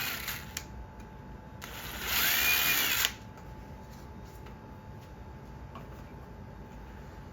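Power drill running for about a second and a half, boring a screw hole through a wooden ceiling fan blade. The motor whine rises and then eases off. A shorter drill run trails off just as the sound begins.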